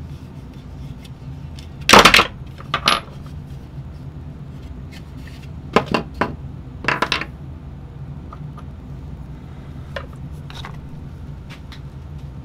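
Small hard parts clattering and clicking on a wooden workbench as they are handled and set down: a sharp clatter about two seconds in, another just before three seconds, two more around six and seven seconds, then a few light clicks.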